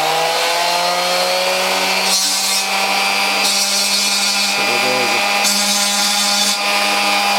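Bench grinder's flexible-shaft tool running at a steady pitch. From about two seconds in its bit grinds against thin sheet metal in four short passes, taking the burrs off freshly drilled holes.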